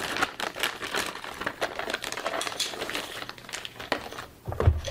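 Clear plastic bag crinkling and rustling as a device is pulled out of it, with irregular crackles throughout. A dull knock comes near the end.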